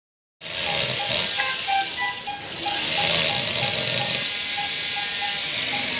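Cranial drill boring a burr hole through the skull: a steady, loud hiss that begins about half a second in and dips briefly near the middle. A short tone repeats about three times a second throughout.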